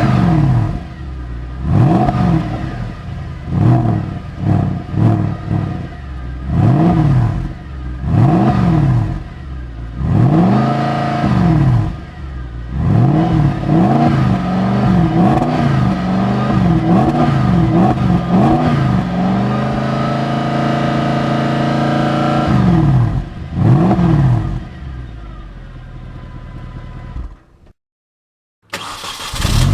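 Mercedes-Benz CLK55 AMG's 5.4-litre V8 revved over and over from idle, each rev rising and falling. About halfway through it gives a quick run of short blips, then settles back to idle. The sound cuts off near the end, and a different car's engine is heard briefly.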